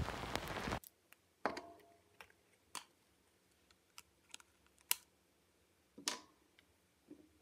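Background music that stops about a second in, then faint, scattered small clicks and taps of a plastic eyeshadow palette being handled, about eight over the next six seconds.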